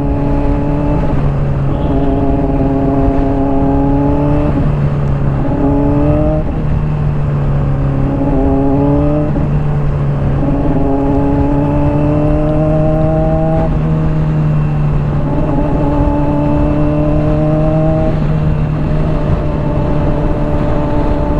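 Honda CBR600RR inline-four sport-bike engine running through a Hotbodies Stinger slip-on exhaust while riding in traffic, its note rising gently and dropping back again about eight times as the bike pulls and shifts, over steady wind and road noise.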